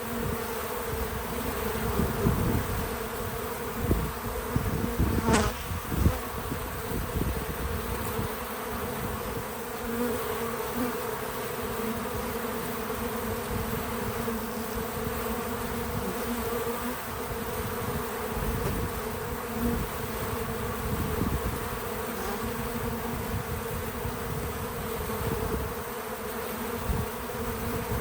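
Many bees buzzing at a feeder: a steady, continuous drone. A few low thumps come in the first several seconds, with a brief sharp click about five seconds in.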